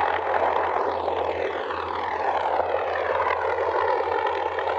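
CH-53E Super Stallion helicopters flying with underslung loads: a steady rush of turbine and rotor noise, with a slow whooshing sweep that dips and rises again as the aircraft move.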